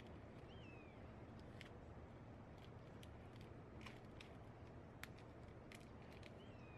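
Faint, scattered ticks and scrapes of a plastic spreader working epoxy resin into fiberglass cloth, over a low steady hum. Two brief high falling chirps, one about half a second in and one near the end.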